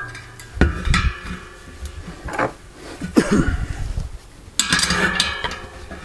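Metal tools clinking and knocking: steel washers, nuts and spanners being handled around a homemade threaded-bar bearing press set in a bicycle wheel hub. There are a few separate knocks, then a quick run of ringing metallic clatter near the end.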